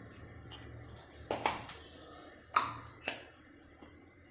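A few light taps and clinks of a small steel spoon against a stainless-steel mixing bowl as powdered spice is knocked off into the flour, in two pairs with short pauses between.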